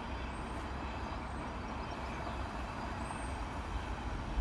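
Steady low rumble of approaching Class 37 diesel locomotives, still out of sight, with a faint hiss above it. A few faint short high chirps come through about three times.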